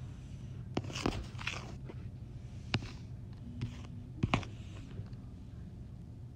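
Scattered short clicks and crunchy taps, about seven in all, with a close pair a little past four seconds in, over a low steady hum.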